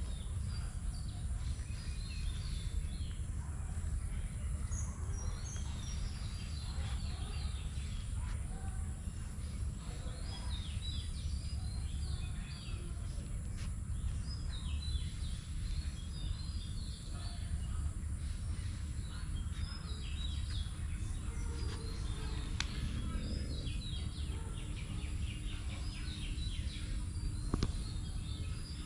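Small birds chirping in many short repeated calls over a steady low background rumble, with a single sharp tick near the end.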